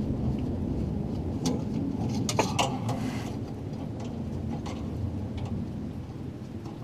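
A steady low rumble, with metal tools being handled over it: a few sharp clicks and knocks, bunched about two and a half seconds in, then a brief scrape.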